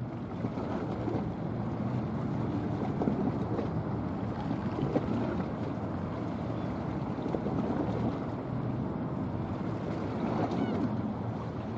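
Wind buffeting the microphone: a steady rushing noise with small flutters, over a low continuous rumble.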